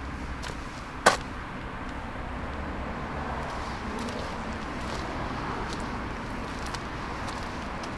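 Steady low outdoor rumble with one sharp knock about a second in and a few faint ticks.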